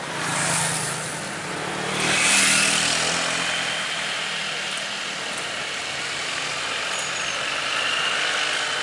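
Coach bus driving past: its engine drone and road noise swell up, loudest about two and a half seconds in, then ease off.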